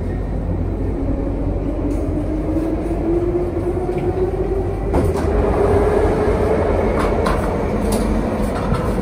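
Minsk Metro train running, heard from inside the car: steady wheel-on-rail rumble under a motor whine that rises in pitch over the first few seconds as the train picks up speed, then holds, with a few sharp clicks in the second half.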